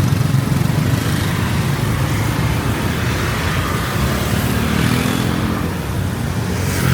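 Busy street traffic: motorbike and car engines running close by in a steady stream, with one vehicle passing louder near the end.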